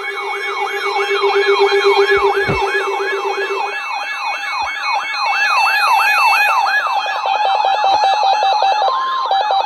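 Several electronic siren and alarm tones sounding at once: a falling sweep repeating about three times a second over steady and pulsing beeps. A lower pulsing tone drops out about a third of the way in, a rapid beeping takes over in the last two seconds, and a short higher steady tone sounds near the end.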